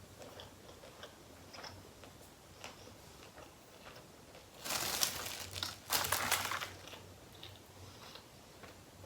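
Close-miked eating: faint chewing clicks, with two louder crackling noises, each about a second long, around five and six seconds in.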